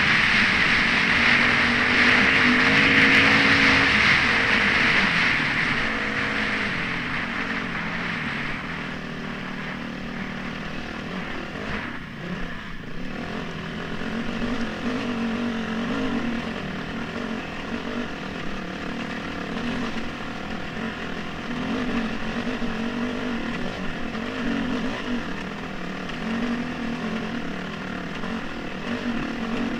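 Yamaha WR250 dirt bike engine under load climbing a steep, rocky hill, heard from a helmet-mounted camera. It starts loud with a strong rush of wind noise, then about six to eight seconds in it gets quieter and the engine note wavers up and down as the revs rise and fall.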